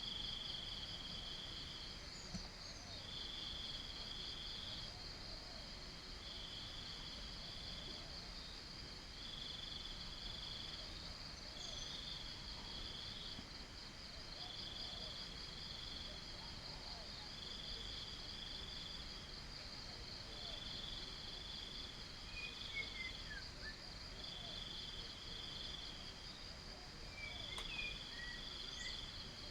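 Insects chirring, crickets among them. One high trill runs steadily, while a lower trill comes in repeated bursts of a second or two with short gaps. A few faint bird chirps come near the end.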